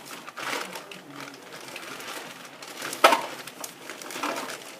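Rustling and handling noises from a batch of foam blaster darts being handled, with one sharp knock about three seconds in.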